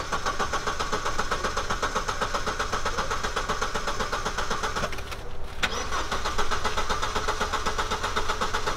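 Starter motor cranking an Opel's engine in two long attempts, about five seconds and then about four, with a short pause between, and the engine does not catch. The car had run out of fuel and has just been refilled from a canister.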